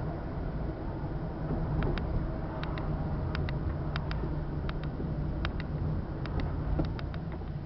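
Steady low engine and road noise inside a moving car's cabin, with light ticks or rattles coming in quick pairs about every three-quarters of a second.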